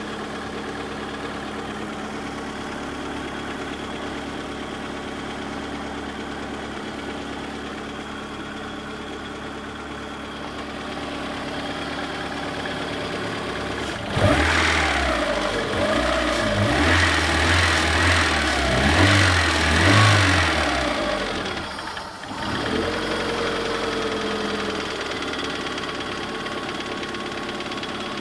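Lada Priora four-cylinder petrol engine idling, revved in several blips about halfway through, then dropping back to idle. It runs with a knock in the engine.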